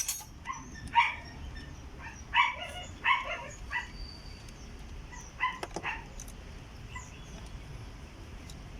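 A dog barking about six times in short groups, falling quiet about six seconds in.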